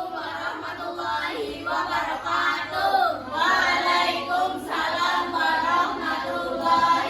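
A group of female voices singing together, with held and gliding notes.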